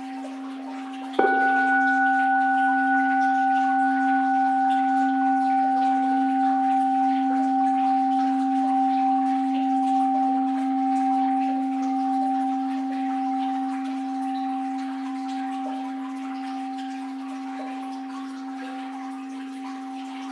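Orin, a Japanese Buddhist bowl bell, struck once about a second in and left to ring, a low hum with a clear higher tone above it, slowly fading. Before the strike, the tail of the previous stroke is still ringing.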